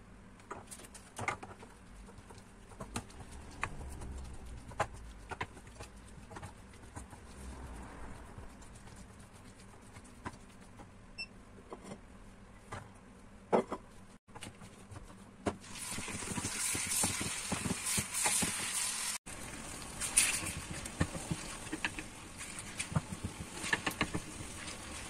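Wooden spoon stirring sliced onions and peppers in a frying pan, with scattered scrapes and taps against the pan. Past the middle a steady frying sizzle comes up under the stirring.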